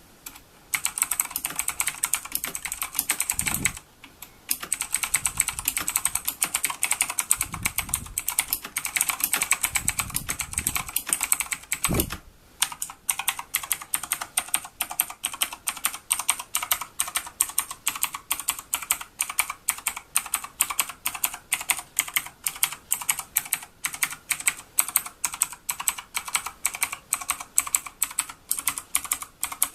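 Typing on a Team Scorpion Pegasus mechanical keyboard with clicky blue switches: fast, dense keystrokes for the first dozen seconds, broken by a short pause and a few low thumps, then an even run of single key clicks a few times a second.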